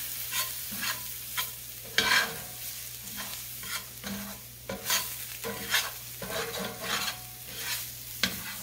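A utensil stirring and scraping flour, onions, mushrooms and celery around a skillet over a steady sizzle, in short strokes about twice a second: a roux being browned in oil and butter.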